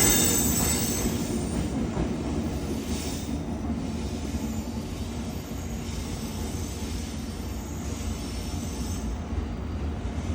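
A Cassiopeia passenger train's wheels running over the rails, the rumble fading steadily as the train draws away.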